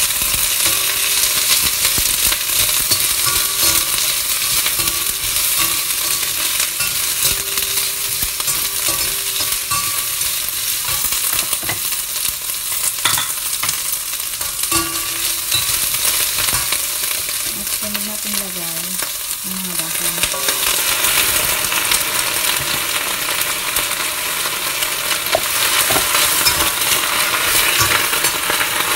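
Carrot and leafy-green stems sizzling in hot oil in a stainless steel wok as they are stir-fried, with the metal spatula scraping and clicking against the pan.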